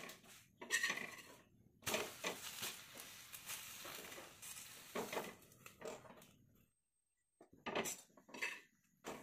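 Metal perforated spatula pressing and scraping a banana-leaf-wrapped pitha on a flat iron tawa, a string of separate scrapes and clinks of metal on the pan.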